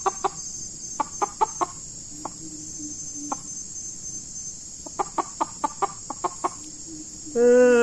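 Decoy junglefowl rooster clucking in short runs of a few quick clucks, over a steady high-pitched insect drone. Near the end comes one short, loud, held call.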